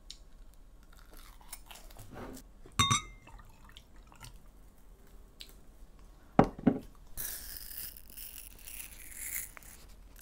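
Breakfast tableware sounds. Metal cutlery clinks sharply on a dish with a brief ring, and a few seconds later comes a double knock on the wooden table, as of a mug being set down. Then a few seconds of high rustling hiss follow.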